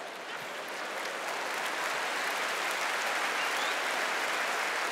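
Large audience applauding, the clapping building up over the first couple of seconds and then holding steady.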